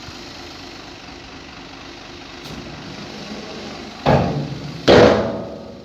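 Dump truck engine idling steadily with the tipper body raised. Near the end come two sudden loud bangs about a second apart, each dying away over a fraction of a second.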